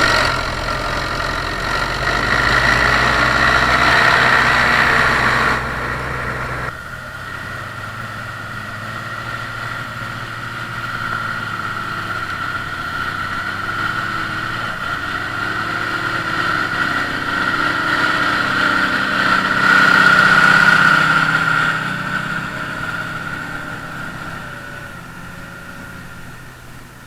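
Diesel engine of harvest machinery running steadily with a high steady whine above it. The sound shifts about six seconds in, grows louder about twenty seconds in, then fades.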